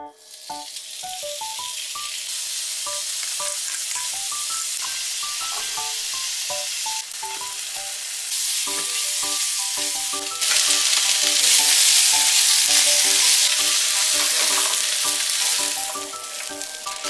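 Sliced pork, then onion, carrot and cabbage, sizzling in hot oil in a frying pan while being stir-fried. The sizzle gets louder about halfway through and eases off near the end.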